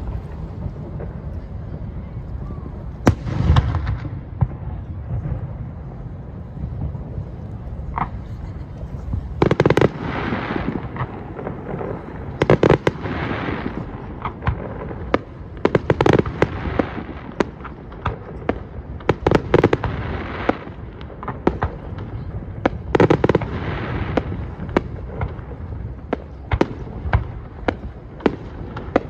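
Aerial fireworks bursting: a run of sharp bangs, with louder clusters of bursts about every three or four seconds and a low rumble between them.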